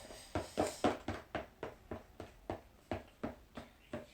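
Slime mixture of PVA glue and shaving foam being stirred, with a short stirring sound repeating evenly about three times a second.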